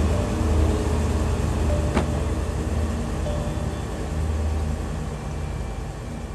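Engine of heavy crane machinery running steadily with a low rumble, with a single short knock about two seconds in.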